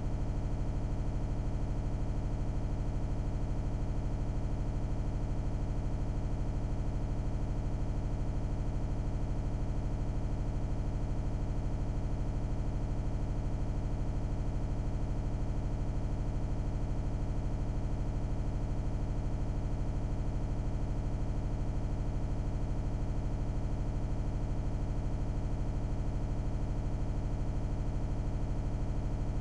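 A loud, unchanging buzzing drone with a fast, even flutter underneath. It sounds like a very short stretch of audio repeating over and over, a stuck, looping recording glitch rather than live engine or road noise.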